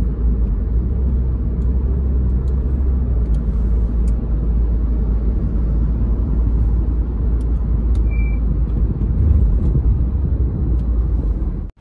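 Road noise heard inside a moving car: a steady low rumble of engine and tyres. A short high beep sounds once about eight seconds in, and the sound cuts off suddenly near the end.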